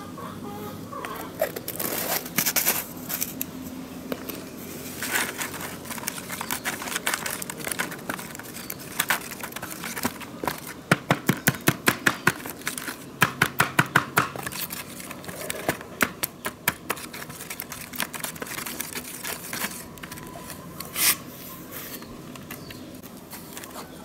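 A bamboo stick pounding and crushing tomatoes and onion in a metal tray: wet squashing knocks and scraping, with a fast run of repeated knocks around the middle.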